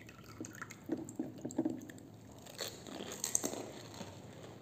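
Crisp golgappa (pani puri) shells crunching as they are bitten and chewed: a run of short, irregular crunches.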